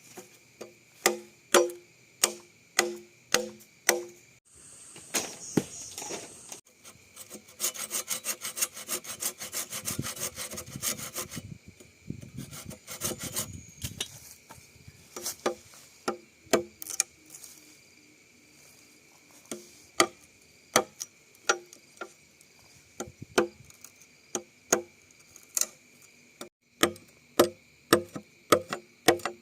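Bamboo tubes being worked by hand: hollow wooden knocks about twice a second, then a stretch of rapid sawing strokes through the middle, then more irregular knocks toward the end.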